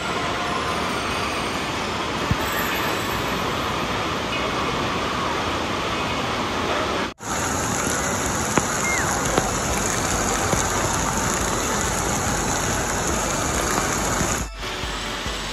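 Steady rush of water streaming down water-slide flumes and splashing into their runout troughs. It breaks off in a brief drop-out about seven seconds in.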